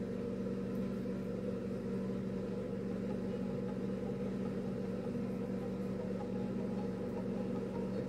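A steady low mechanical hum with several held tones, unchanging throughout.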